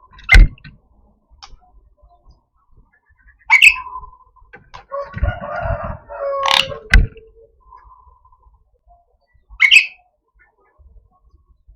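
Javan myna (jalak kebo) giving harsh, sharp call notes about every three seconds, with a longer, rougher call in the middle.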